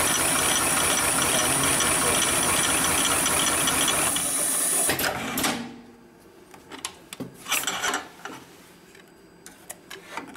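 Hightex heavy-duty computer-controlled pattern tacking machine running a stitch cycle through thick synthetic webbing, a dense rapid mechanical clatter with a steady high hiss. It stops about five seconds in, and after that there are only a few light clicks and handling noises.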